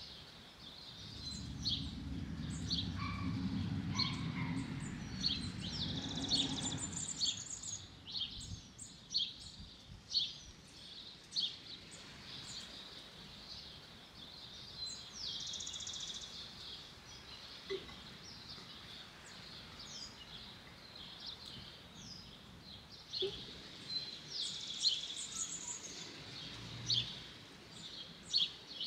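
Small birds chirping repeatedly in short calls, with an outdoor background hum. In the first several seconds a low engine drone rises and then fades out.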